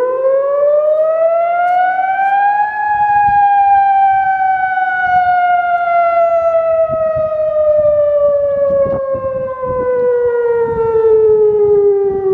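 ATI HPSS-32 electronic warning siren sounding its wail tone. The pitch rises for about the first three seconds, then falls slowly and steadily for the rest.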